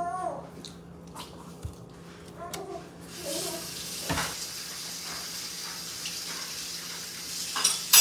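Kitchen tap turned on about three seconds in, water running steadily. There are a few light knocks before it and a sharp knock near the end.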